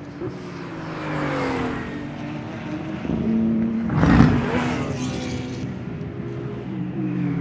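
GT3 race car engines passing at speed, their pitch falling as each car goes by. The loudest, closest pass comes about four seconds in.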